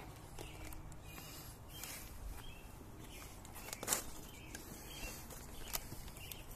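Faint outdoor background with a few scattered sharp clicks and knocks, the sharpest about four seconds in.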